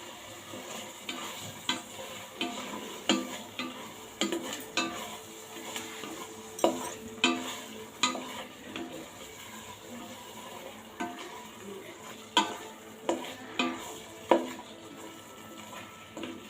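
A spoon stirring food in a metal cooking pot, knocking and scraping against the sides at irregular intervals, with a short metallic ring after the louder strikes.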